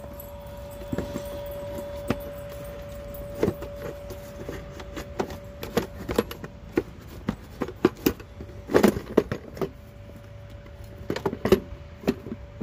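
Irregular metallic clicks and clinks of hand tools against the intake parts of a Honda Foreman ATV being unbolted, over a steady faint hum. The clicks come more thickly about nine seconds in and again near the end.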